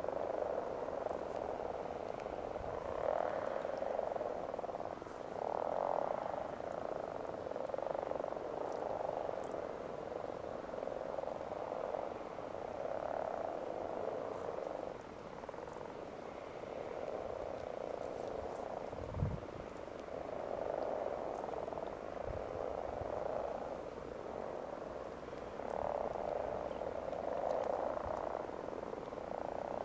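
Breeding chorus of common frogs (Rana temporaria): many males croaking together in overlapping swells of a second or two, the calls of spawning time. A brief low thump comes about two-thirds of the way through.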